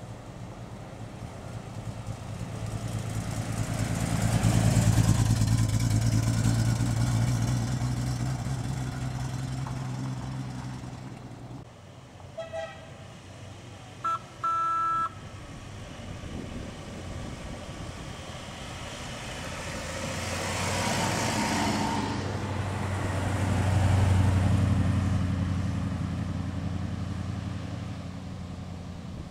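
A Triumph TR6's straight-six engine running as the car drives past, loudest about five seconds in. Around halfway a car horn gives a couple of short toots, the last one longer, and near the end a second classic car's engine passes, loudest about twenty-four seconds in.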